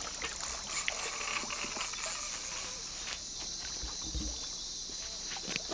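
Chorus of night insects in the Amazon rainforest: a steady high-pitched shrilling, with a few faint clicks over it.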